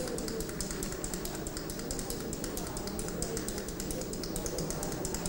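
Dense, irregular clicking over a low steady rumble.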